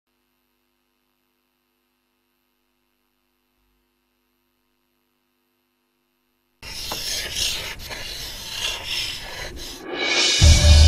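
Silence, then about six and a half seconds in a dry scratching and rubbing sound effect with a few sharp clicks. Near the end a whooshing swell rises and a deep bass note comes in as the music starts.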